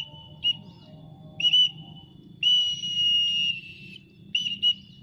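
Shrill whistling: several short, sharp whistles that bend at the start, with one longer held whistle in the middle. These are a handler's calls to bring a flying pallow bird back.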